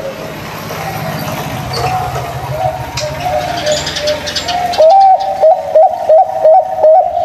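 Zebra doves (perkutut) cooing: faint, wavering coos over a low hum and hiss, then about five seconds in a close bird starts a loud run of short, clipped coo notes, about three a second.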